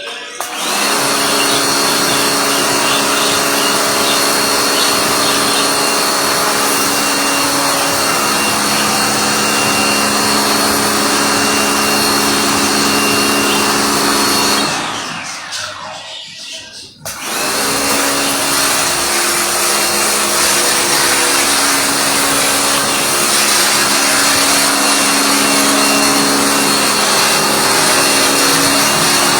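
A loud electric motor appliance running steadily with a whine. About 15 s in it is switched off and winds down with a falling pitch, then it starts up again about 2 s later and runs on.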